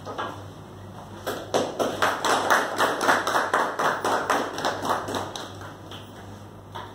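A few people clapping in quick, separate claps, starting about a second in and dying away after about four seconds.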